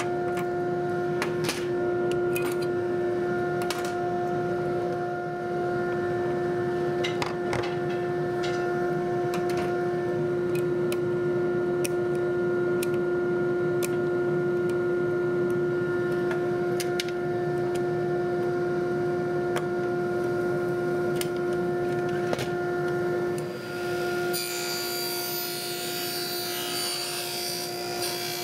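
A vacuum-type dust-collection motor runs with a steady hum while metal and wooden table-saw parts are handled, with scattered clicks and knocks. About 24 seconds in, a brighter hiss joins the hum.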